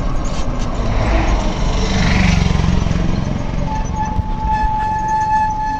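Ride noise of a moving bus: steady engine and road rumble, swelling briefly about two seconds in. A steady high tone joins a little past halfway and holds.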